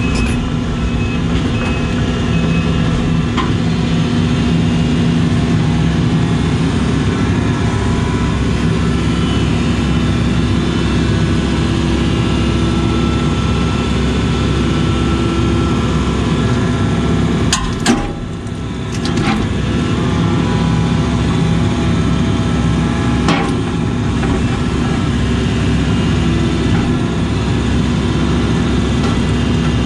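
Case CX80 excavator's diesel engine and hydraulics running steadily, heard from inside the cab. A few sharp knocks come about 18 and 23 seconds in, and the engine noise dips briefly after the first.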